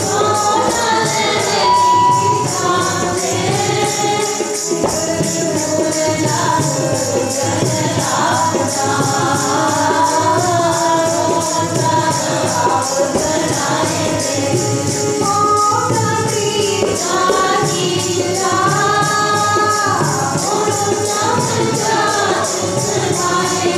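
Sikh kirtan: a singer leading a hymn over harmonium and tabla, with other voices singing along and a steady high-pitched percussion beat.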